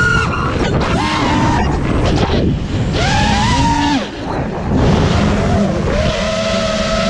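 FPV quadcopter's four Hypetrain Blaster 2207 1800kv brushless motors with 5-inch Dalprop props whining, the pitch rising and falling in several throttle surges, with a brief dip about four seconds in and a steadier whine near the end. Heard through the GoPro mounted on the drone.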